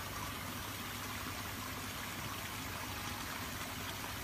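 Steady rush of running water in a koi pond.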